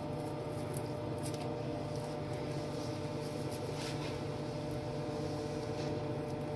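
Steady machine hum with a couple of steady tones running through it, and faint scattered light ticks above it.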